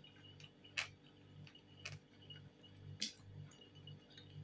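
Faint eating sounds: a metal fork clicking against a china plate, with three sharp clicks about a second apart over a low pulsing hum.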